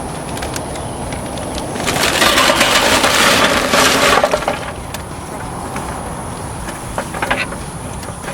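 Charcoal briquettes poured into a grill: a dense, clattering rush for about two and a half seconds, then a few brief clicks and knocks near the end.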